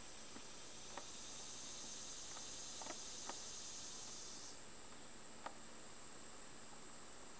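A faint, steady high-pitched chorus of insects, with one layer of it cutting off suddenly about four and a half seconds in. A few faint ticks sound now and then.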